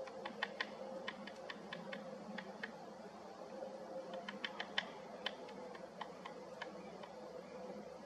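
Great spotted woodpecker hammering with its bill at a pine cone wedged into a crevice of the trunk, its anvil, to pry out the seeds: irregular sharp taps that come in short clusters, several a second, with brief pauses between.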